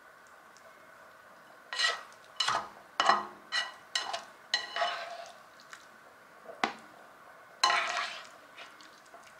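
Spatula scraping and knocking against an electric hot pot and a plate as stir-fried food is dished out: a run of quick scrapes from about two seconds in, one more a little later, and a longer scrape near the end.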